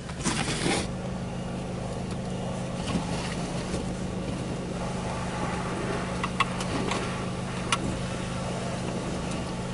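Car engine idling, a steady low hum heard from inside the cabin, with a few faint clicks about six to eight seconds in.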